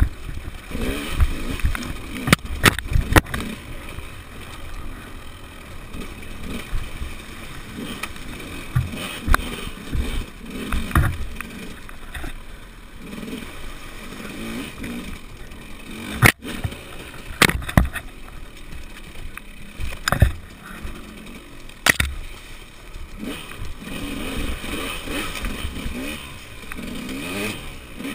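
Enduro dirt bike engine revving up and down as the bike picks its way along a rocky trail, with sharp knocks and clatter from the bike hitting rocks several times.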